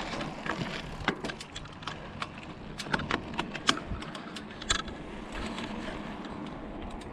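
Bicycle rolling along a paved road, heard from a handlebar-mounted camera: a steady rush of road and wind noise with many small, irregular rattling clicks from the bike and its mount.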